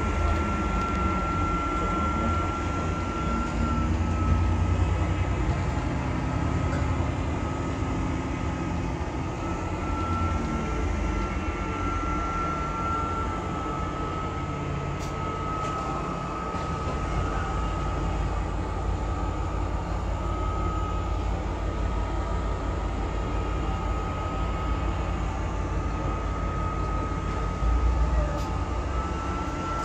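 A double-decker bus driving along, heard from inside on the upper deck: a steady engine and road rumble with a thin whine that shifts slightly in pitch every few seconds.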